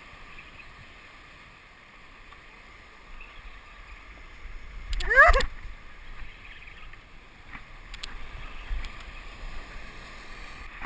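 Ocean surf washing steadily against the shore. About five seconds in there is one short, loud sound that rises quickly in pitch.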